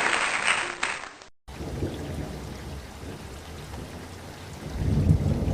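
Rain with low rumbling thunder that swells about five seconds in. It is preceded, after a loud hissing noise that fades out within the first second and a brief cut to silence, by the start of the storm sound.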